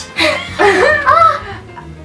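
A girl laughing, over background music.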